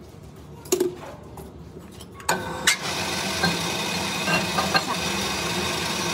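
A metal lathe switches on about two seconds in and runs steadily, its motor and headstock gearing giving a constant mechanical hum. A single knock comes shortly before it starts.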